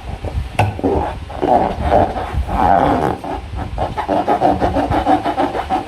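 Slime and a rubber balloon being squeezed and worked by hand: rubbery creaking and squeaking with small sticky clicks, in uneven swells.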